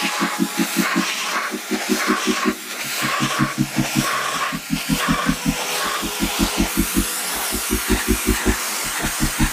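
Ryobi pressure washer running, its jet hissing as it blasts mud off a truck wheel and tire, with the pump pulsing at about six beats a second in runs broken by brief pauses.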